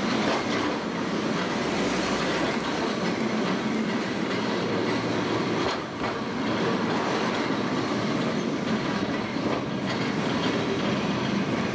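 A 1930s-era vintage Lisbon tramcar running along street rails, heard from on board: a steady rumble of its wheels and body on the track, easing briefly about six seconds in.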